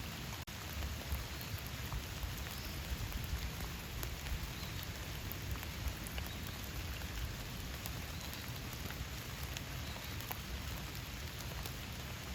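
Steady rain falling, many separate drops ticking over an even hiss. The sound cuts out for an instant about half a second in.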